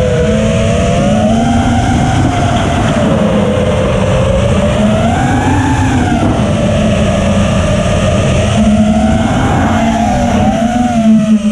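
The four brushless motors of a 5-inch FPV racing quadcopter (ImpulseRC Apex on iFlight 1750KV motors) whining, heard from the onboard camera; the pitch rises and falls with the throttle, climbing highest about five to six seconds in. Wind rumbles over the microphone underneath.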